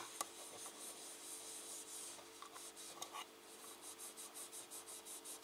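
Oil-soaked cotton pad rubbed back and forth over a light fixture's base, scrubbing off price-tag glue. Faint scratchy strokes that quicken to about five or six a second in the second half, after a sharp click at the very start.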